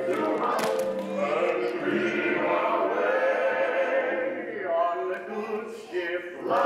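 Recorded song: a group of voices singing together in held notes over backing music.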